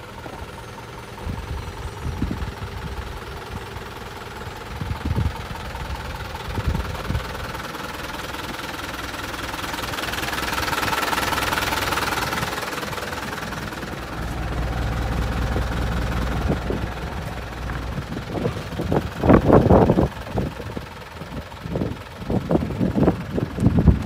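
Mitsubishi 4D32 four-cylinder diesel engine idling with a steady clatter. Louder, uneven thumps come in over the last few seconds.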